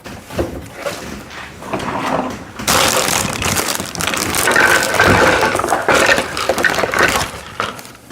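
Plastic packaging rustling and crinkling while the kit's loose parts are handled, with small pieces clattering against each other.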